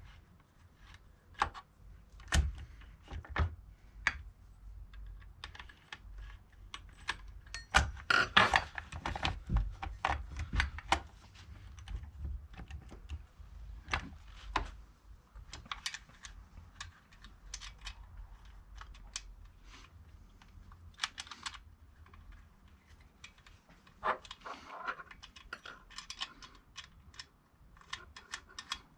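Irregular clicking and clattering of small metal parts, with the loudest cluster about eight to eleven seconds in: a loose saw chain and bar being handled and fitted onto a chainsaw.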